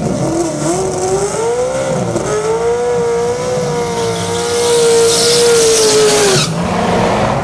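Fourth-generation Chevrolet Camaro drag car doing a burnout: the engine climbs over the first two seconds, then is held at steady high revs with the rear tyres spinning and squealing. It cuts off sharply about six and a half seconds in, dropping to a lower engine rumble.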